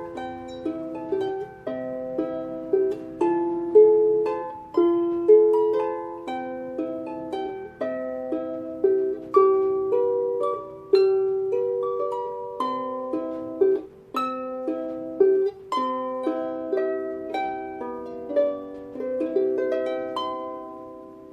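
Irish harp playing a slow melody with chords, each note plucked and left to ring, dying away at the end.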